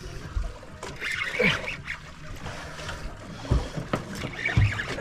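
Sea water sloshing and lapping against the hull of a small boat, with wind on the microphone and a few dull knocks.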